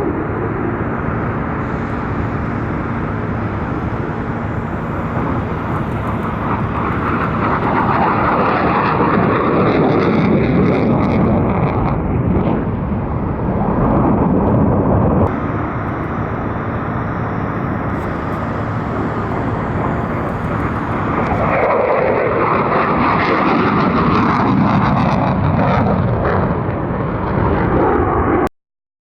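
Jet noise from an F-35's single Pratt & Whitney F135 afterburning turbofan as the fighter flies its display. The roar swells and sweeps up and down in pitch as it passes, changes abruptly about halfway through, and cuts off suddenly near the end.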